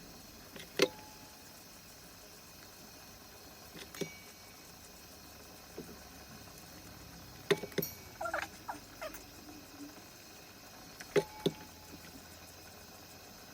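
Scattered knocks and clinks of kitchen handling, pots and utensils being set down and moved, with a short run of squeaky scraping about eight seconds in, over a faint steady hum.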